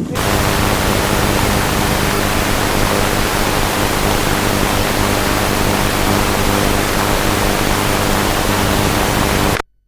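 Loud, steady static hiss with a buzzing hum underneath, the noise of a blank stretch of analog videotape between recordings. It starts abruptly and cuts off to silence just before the end.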